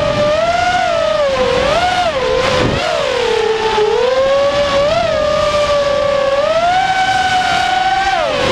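Racing quadcopter's four Cobra 2206 2100KV brushless motors and propellers whining, the pitch rising and falling with the throttle as it flies fast and low, heard from the onboard camera with wind rushing past it.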